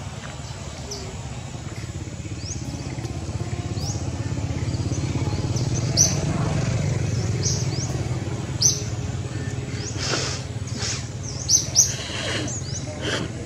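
Birds chirping in short, quick upward-sweeping chirps over the low hum of a passing motor vehicle. The hum swells to its loudest about halfway through, then eases off.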